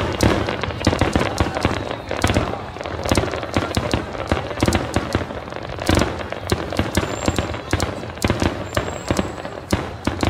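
Barrage of aerial firework shells bursting in rapid succession, several sharp bangs a second overlapping with no pause, over a continuous low rumble.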